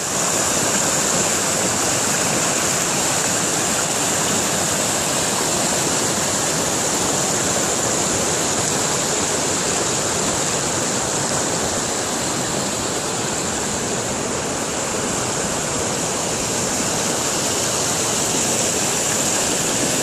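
Fast mountain river rushing over a rocky, boulder-strewn bed: a steady, unbroken roar of white water.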